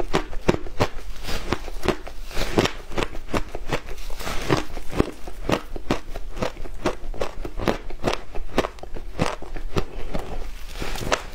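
Crunching of frozen shaved ice being bitten and chewed close to the microphone: an irregular run of crisp crunches and crackles, several a second.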